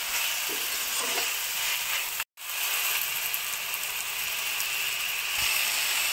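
Masala-marinated chicken pieces sizzling steadily as they fry on high heat in a steel pan, with a spoon stirring in the first couple of seconds. The sound cuts out for a moment about two seconds in.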